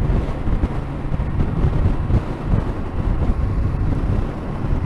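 Strong gusty wind buffeting the microphone of a moving motorcycle, in low, uneven surges, over the running of the Yamaha Ténéré 700's parallel-twin engine cruising at steady speed.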